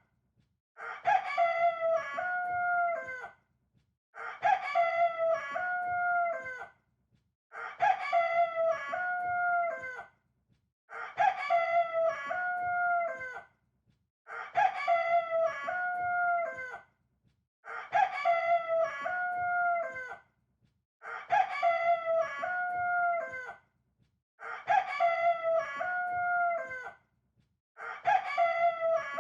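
Rooster crowing, a full multi-note cock-a-doodle-doo about two and a half seconds long, repeated identically about every three and a half seconds: one crow looped, nine times over.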